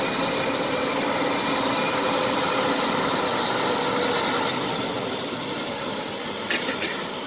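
Large Claas tractor's diesel engine running as the tractor drives slowly along: a steady, dense mechanical noise that gets gradually quieter, with a few short clicks near the end.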